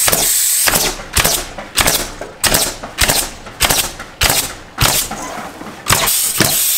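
Pneumatic stapler firing 1 1/4-inch Senco-style staples through wire lath into the studs, shot after shot in a steady rhythm, about ten shots roughly two-thirds of a second apart. Each shot is a sharp bang with a short hiss trailing after it.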